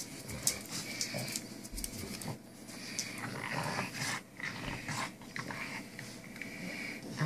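Dogs growling playfully while tugging on a rope toy, a French bulldog puppy against a big Dogue de Bordeaux, with scattered clicks and scuffles.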